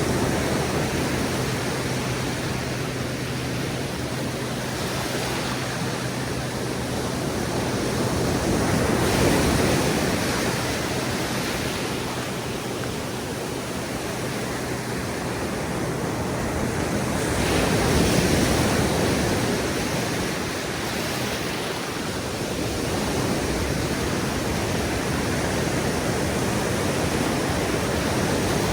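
Ocean surf breaking on a beach: a continuous wash of waves that swells louder twice, about a third and about two-thirds of the way through.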